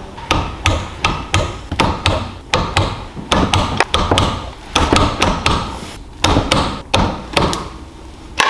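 Ratchet head of a torque wrench clicking in short swings, about three to four metal ticks a second with brief pauses, as the connecting-rod cap bolts are tightened in stages.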